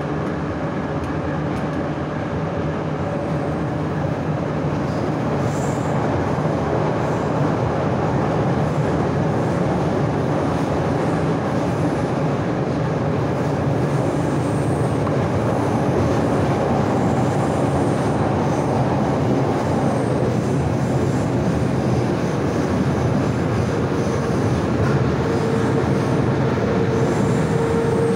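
Moscow metro 81-717/714 'Nomernoy' train running at speed, heard from inside the car by the door: a steady rumble of wheels on rails, growing a little louder over the first few seconds. A steady whine joins near the end.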